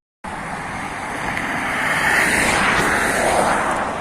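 Steady freeway traffic from US 101, a loud rushing of tyres and engines that swells as vehicles pass, starting abruptly just after the beginning.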